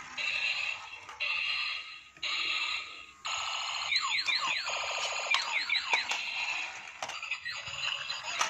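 Robocar Poli transforming toy police car's battery-powered electronic sound effects from its small speaker: three short repeated bursts of high beeping, then, from about three seconds in, a run of quick falling electronic tones like a toy siren.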